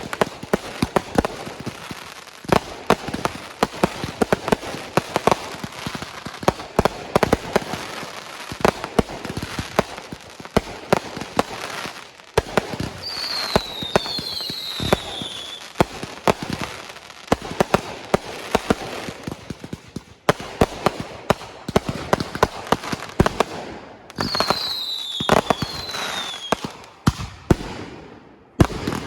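Fireworks display: a dense run of sharp cracks and bangs from exploding shells. High falling whistles come in pairs about halfway through and again near the end.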